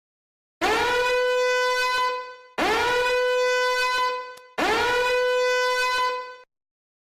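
Cartoon horn-blast sound effect played three times in a row. Each blast swoops up in pitch and holds one steady, brassy note for about two seconds before cutting off.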